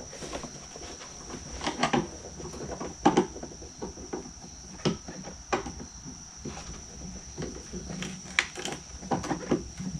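Screwdriver working on the air intake tube clamp of a Dodge Durango's engine: irregular clicks, scrapes and light knocks of the tool on metal and plastic, the sharpest about two, three, five and eight and a half seconds in, over a faint steady high whine.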